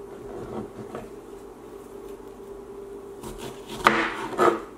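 Kitchen knife cutting through a strawberry onto a plastic cutting board: two sharp knocks near the end. A steady low hum lies underneath throughout.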